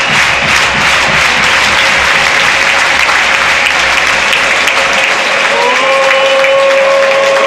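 Football stadium crowd applauding and cheering a home win. About five and a half seconds in, a steady pitched tone starts with a short upward slide and holds over the crowd.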